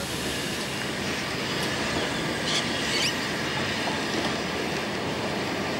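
Vintage sugar-cane steam locomotive making a steady rushing noise, with a few brief high squeaks about two and a half to three seconds in.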